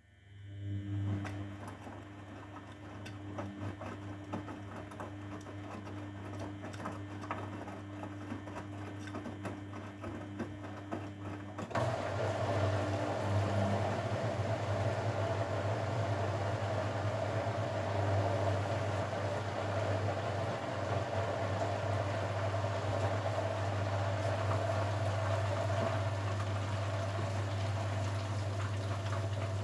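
Grundig Mini 14 washing machine starting a water step: a steady low electrical hum with water rushing through. About twelve seconds in it turns louder and fuller and then holds steady.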